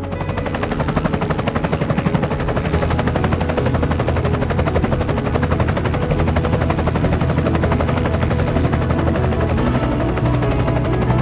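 Helicopter rotor chopping fast and evenly over a steady engine hum. It grows louder over the first couple of seconds, as if flying in, then holds steady.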